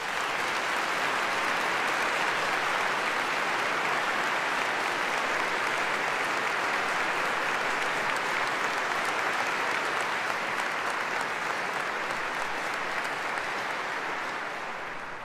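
A large audience applauding steadily, the clapping easing off slightly near the end.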